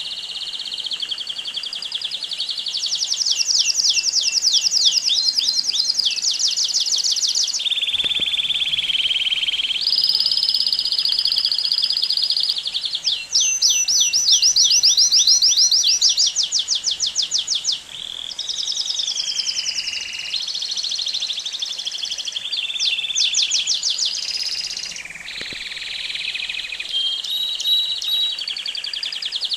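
Belgian canary singing a long, unbroken song of rapid trills, moving from one trill phrase to the next every second or two, with fast repeated notes and some held whistled tones.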